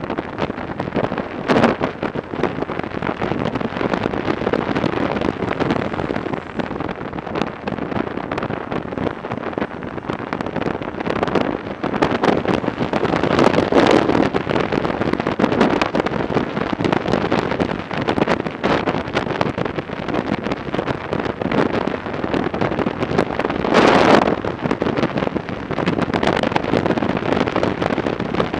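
Wind buffeting the microphone of a helmet camera on a Yamaha XJ900 Diversion riding at steady road speed. The rush rises and falls in gusts, loudest around the middle and again near the end.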